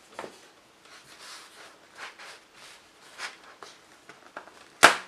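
Hands handling an LED tracing light pad and the loose paper beside it: faint, scattered rustling, then one sharp knock near the end.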